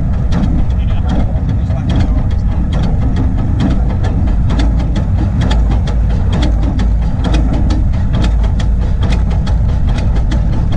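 Coal-fired Crown 4-4-0 24-inch-gauge steam locomotive running along the track: a steady low rumble with many quick, sharp clicks.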